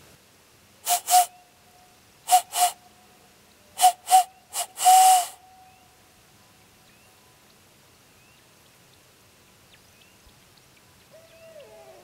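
Barred owl call blown through cupped hands: eight breathy hoots in two pairs and then a group of four, in the owl's "who cooks for you, who cooks for you-all" rhythm. The last note is drawn out and drops at its end. It is a call used to draw answers from owls and to make turkeys gobble.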